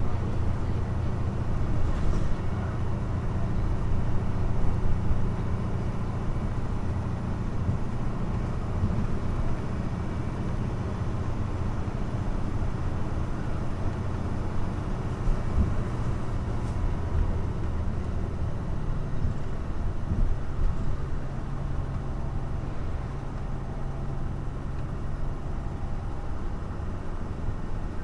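Hino Blue Ribbon city bus's diesel engine running under way, heard from inside the cabin as a steady low drone. The engine note changes about twenty seconds in.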